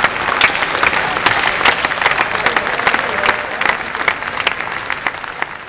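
Audience applauding, a dense patter of clapping with a few voices mixed in; the applause thins out near the end.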